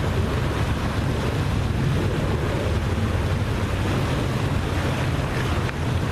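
Steady rush of wind over the microphone and water noise, with a low motor drone underneath, as on a moving boat.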